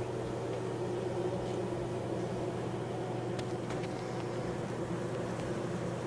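Honeybees buzzing as a steady, even hum in an opened observation hive, with a few faint clicks about halfway through.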